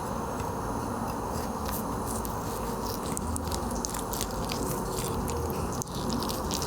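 Dense, continuous crunching and crackling with many small clicks, like close-up chewing: a foley sound made from a household object to stand in for a giraffe eating.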